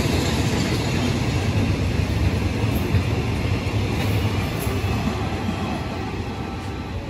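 Oil tanker freight train passing through at speed: steady wheel-on-rail noise from the rolling tank wagons, easing off slightly in the last two seconds.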